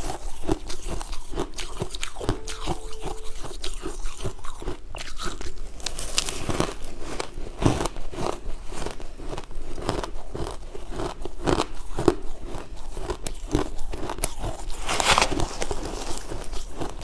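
Freezer frost being bitten and chewed: dense, irregular crisp crunching of flaky ice throughout, with two brief hissy spells about six seconds in and near the end.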